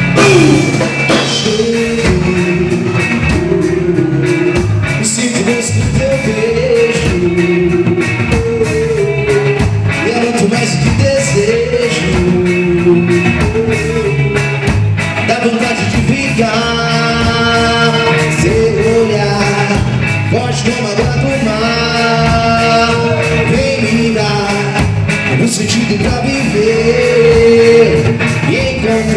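Rock song with a lead singer over a full band and a steady drum beat.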